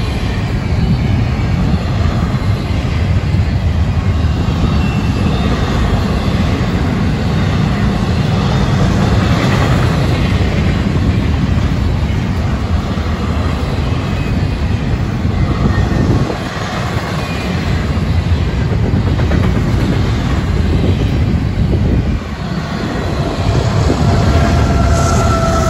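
Double-stack intermodal freight train passing close by: the steady rumble and rattle of loaded well cars rolling over the rails, dipping briefly twice as car gaps go by.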